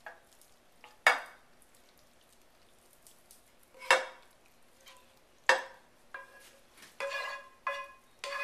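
Wooden spoon scraping browned ground beef out of a skillet into a ceramic casserole dish: a few sharp knocks about one, four and five and a half seconds in, then a quicker run of taps near the end with the pan ringing.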